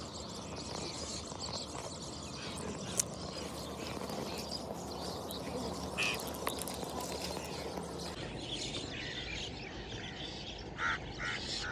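Birds calling over a steady outdoor hiss, with a couple of sharp pebble clicks as a hand sorts through river gravel; a quick run of short bird calls comes near the end.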